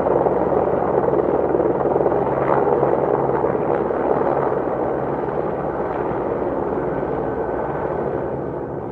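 Steady mechanical drone of a running vehicle, with a few constant low hum tones under a wide rushing noise, easing off slightly near the end.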